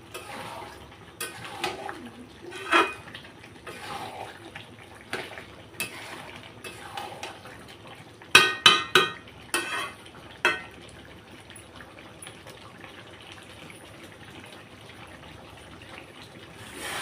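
A metal spoon stirring and scraping in a kadhai of chicken curry, with scattered clinks against the pan and a quick run of sharper metal clinks about eight to ten seconds in, then a quieter stretch.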